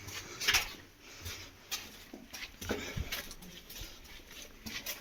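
Irregular footsteps and small knocks, about one or two a second, echoing in the shelter's tunnels.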